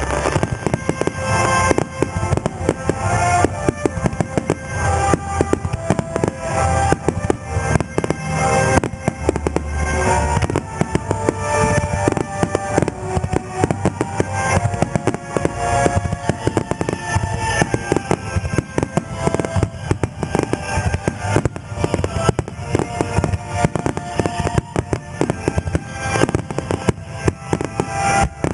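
A starmine barrage of aerial fireworks bursting in rapid succession, many sharp bangs every second, over music played along with the show.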